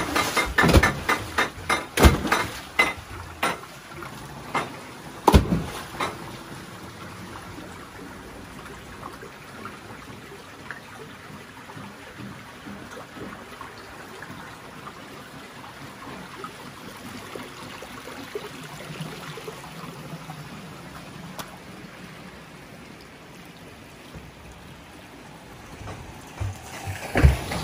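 Irregular clattering knocks over the first few seconds, then water running in a steady, even rush. More knocks come near the end.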